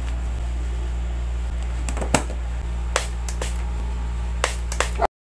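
Steady low hum with a few short, sharp clicks and taps from handling small items: satin scrunchies being taken from a plastic drawer organiser and set down. All sound cuts out suddenly about five seconds in.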